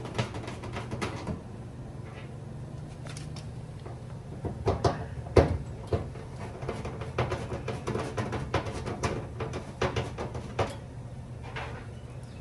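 Irregular clicks, knocks and clatter of hand tools and bolts as a fender flare is fastened to a car body, over a steady low hum. The loudest knocks come about five seconds in.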